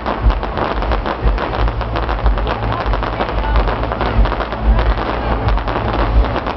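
Fireworks display going off: dense, rapid crackling and popping over frequent low booms.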